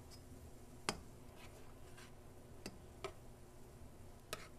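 Metal ladle clicking against the side of a saucepan as simmering pickling liquid is stirred: four or five sharp light clicks spaced out, the loudest about a second in, over a faint low hum.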